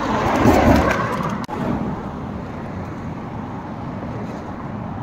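Road traffic noise beside a street: louder for about the first second and a half, then cutting out for an instant and carrying on as a steadier, quieter hum.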